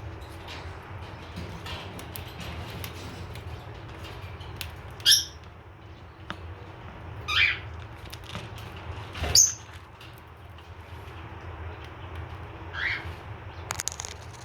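Cockatiel giving four short, shrill calls a couple of seconds apart, over small scattered clicks of sunflower seeds being cracked open in its beak.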